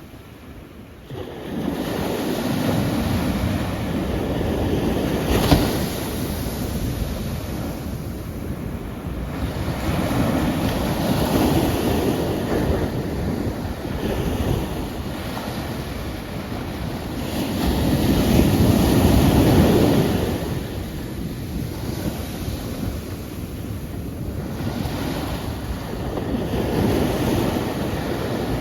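Ocean waves washing onto a shore, each surge of surf swelling and fading every several seconds.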